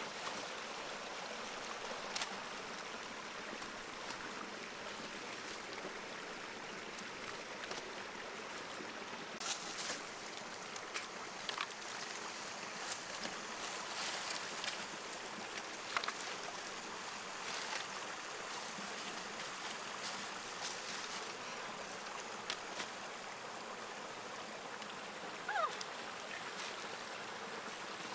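Shallow rocky forest stream running steadily over stones, with scattered light snaps and crackles of dry sticks and leaf litter being handled and stepped on.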